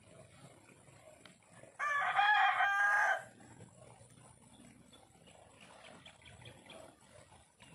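A rooster crowing once: one long call of about a second and a half, well above the quiet background.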